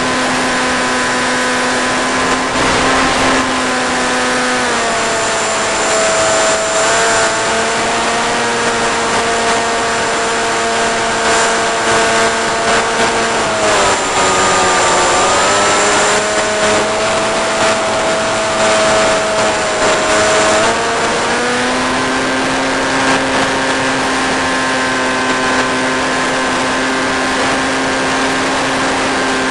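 Electric motor and propeller of a 1.5 m Eagle Wing flying-wing RC plane, heard through its onboard camera: a steady droning whine over a constant rush of air and hiss. Its pitch drops about five seconds in, dips lower again around the middle as the throttle is eased back, and climbs back up a few seconds later.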